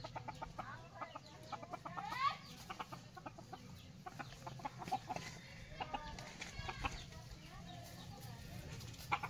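Fighting-breed roosters and other chickens clucking in a stream of short, rapid clucks, with a couple of rising calls about two seconds in.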